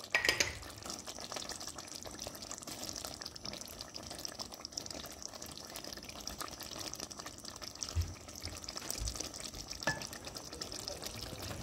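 Thick eggplant-and-vegetable stew simmering in a cauldron while a spatula stirs it: a steady wet bubbling and squelching. A few low knocks come in the second half.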